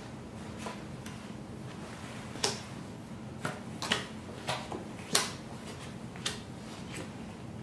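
Spanish playing cards being dealt face up onto a wooden table: a string of sharp card snaps and taps, about nine of them, the loudest a little past the middle.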